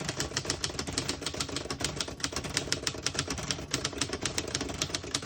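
1939 Royal Model U portable typewriter being typed on quickly, a steady run of sharp key and typebar strikes several times a second.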